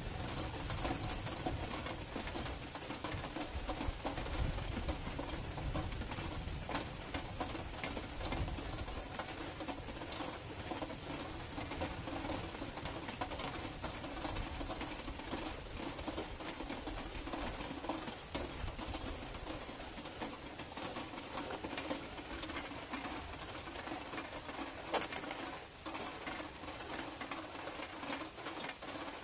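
Steady rain falling in a night thunderstorm, with a low rumble of thunder that dies away over the first several seconds. A single sharp tick sounds near the end.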